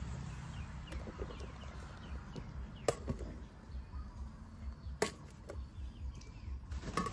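Three sharp knocks, about two seconds apart, over a low steady rumble with faint chirping.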